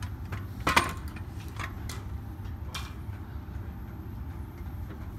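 Gym room noise: a steady low hum with a few sharp knocks or clacks, the loudest about a second in.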